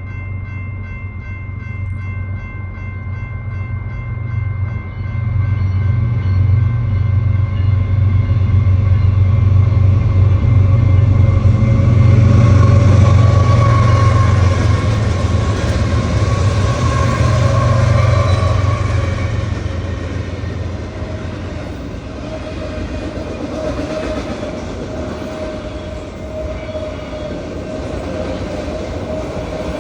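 Diesel-hauled BNSF train passing: a deep engine rumble builds and is loudest about twelve to eighteen seconds in, then fades, leaving the railcars rolling by with a steady mid-pitched tone from the wheels.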